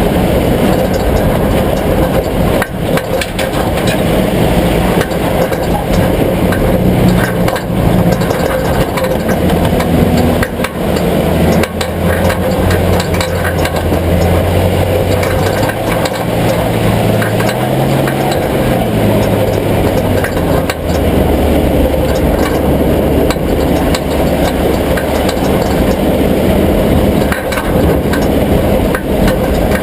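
Vehicle engine running, its pitch shifting up and down with engine speed, with irregular knocks and clicks throughout: the unexplained noise being searched for.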